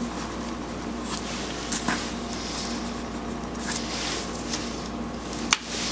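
Hands handling wires and an alligator clip on a circuit board: soft rustling with a few light clicks, the sharpest about five and a half seconds in, over a steady low hum.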